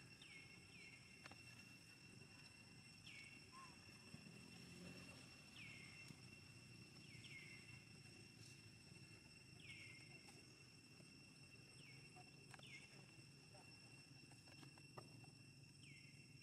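Faint steady high insect drone, with short high animal chirps that each drop in pitch, repeating every second or two at irregular intervals.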